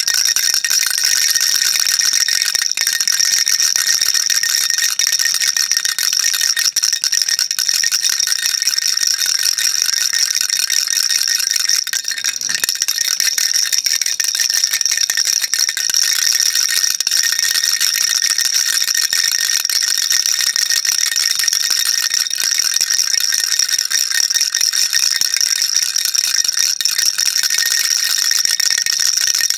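Baby rattle shaken continuously and rapidly, a dense, steady, bright rattling of small beads inside.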